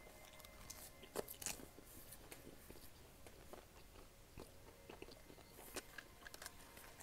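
Faint close-up eating sounds: a person chewing a mouthful of fried dough, with scattered small mouth clicks and smacks.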